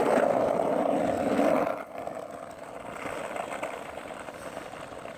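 Skateboard wheels rolling on asphalt, a steady rumble that is loud for about the first two seconds, then drops to a quieter rumble.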